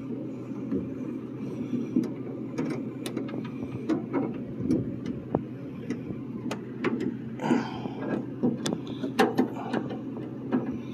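Scattered light clicks, knocks and rattles of hands working the lock linkage and clips inside a Honda Civic coupe door, metal and plastic parts tapping, over a steady low hum. A longer rattle comes about seven and a half seconds in.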